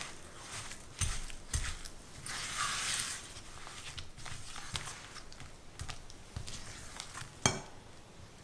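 Silicone spatula stirring and scraping a thick cream and sugar mixture around a glass bowl: irregular soft, wet swishes and squelches, broken by a few sharp taps of the spatula against the bowl, the loudest about seven and a half seconds in.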